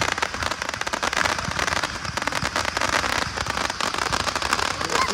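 Fireworks crackling: a dense, continuous run of rapid small pops and crackles without any single big bang.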